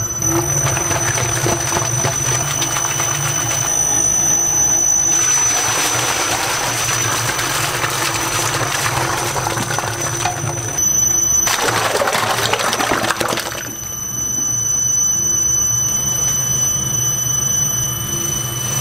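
Commercial batter mixer running in a stainless steel vat: a steady motor hum with a high whine, and stretches of loud swishing noise that come and go as the paddle churns the egg-and-flour waffle batter.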